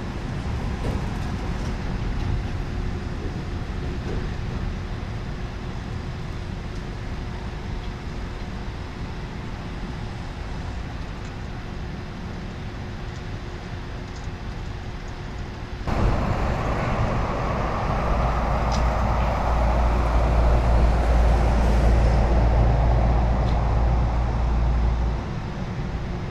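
Steady rumble of vehicle engines and road traffic, with a faint steady hum underneath. About sixteen seconds in it abruptly gets louder, with a deep rumble and a hiss, then drops back shortly before the end.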